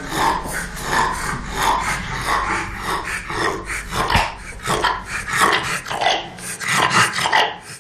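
Bulldog breathing noisily in quick, even breaths, about three a second. This is the obstructed breathing he is to be operated on so that he can breathe well again.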